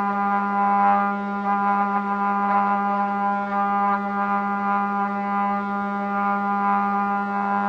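Five-axis CNC router spindle running with a steady whine while its bit carves solid wood, the cutting sound swelling and fading in short surges as the tool moves across the piece.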